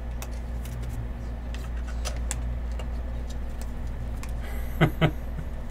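Light plastic rustling and scattered clicks of a trading card being slid into a soft plastic penny sleeve, over a steady low hum.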